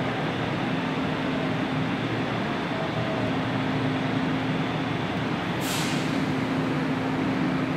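Busan Metro Line 1 electric train standing at the platform: a steady hum and rush of its running equipment with a constant low tone, and a short burst of air hiss about six seconds in.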